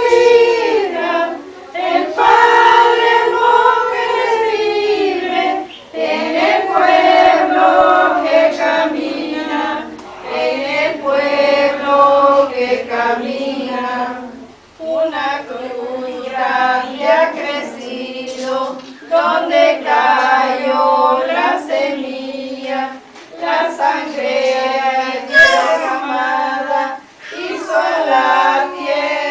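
A group of women and girls singing a hymn together without instruments, in long phrases broken by short pauses for breath.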